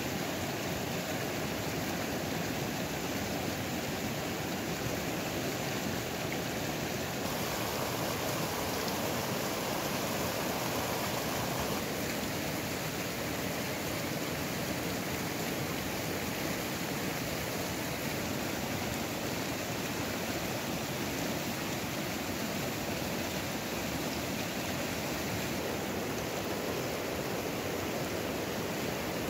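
A fast mountain stream running over rocks: a steady, unbroken rush of water.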